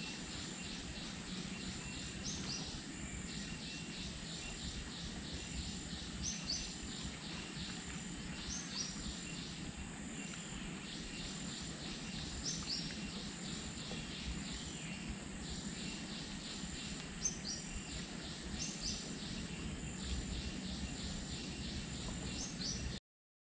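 Tropical insects chirping without pause in fast pulsed trains over a high steady whine, with short high chirps every few seconds. The sound cuts off abruptly just before the end.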